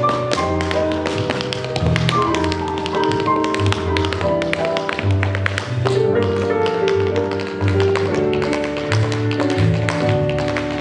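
Tap shoes striking a hard dance floor in fast, dense rhythms of sharp clicks, over music with held notes and a moving bass line.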